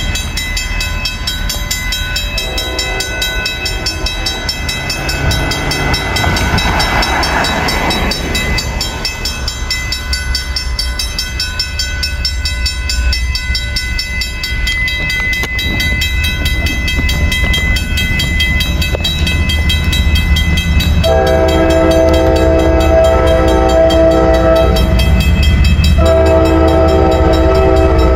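A train running with a steady low rumble while its locomotive sounds a multi-note horn: a faint blast a few seconds in, then two loud long blasts near the end with a short break between them.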